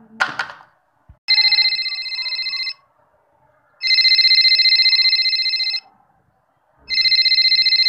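Telephone ringing: three rings separated by short gaps, the first about a second in and the last cut short.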